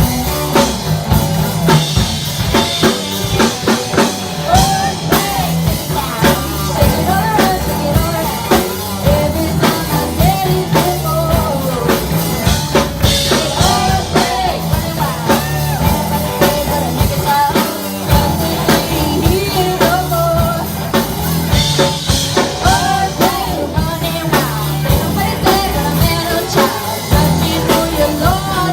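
Live funk-rock band playing loudly: drum kit keeping a steady beat under a bass line, with a singer carrying the melody on top.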